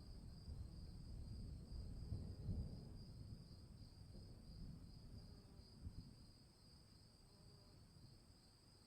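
Distant thunder rumbling low and fading away, with a louder swell a couple of seconds in and another about six seconds in. Under it, steady high-pitched insect chirring.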